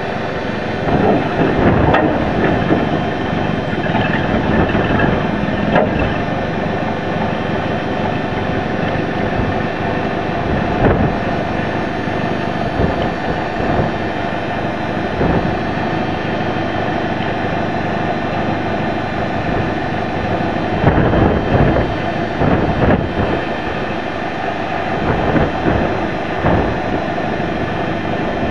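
Engine of the machine lifting the truck body running steadily, with irregular metal knocks and clanks.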